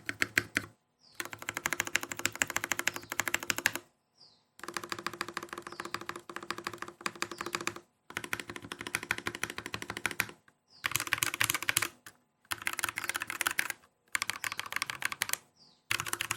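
Vortexseries VX64 mechanical keyboard with lubed KTT Grapefruit linear switches and PBT keycaps being typed on fast, in bursts of rapid keystrokes a few seconds long broken by short pauses.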